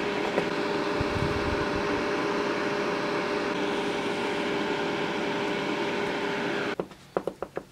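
Steady whir of a small electric fan with a low hum, which cuts off suddenly near the end, followed by a few light clicks.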